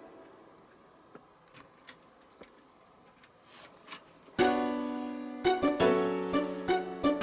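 Background music: after a few seconds of near quiet with faint scattered clicks, a piano or electric-piano tune starts about four seconds in, with chords and plucked-sounding notes.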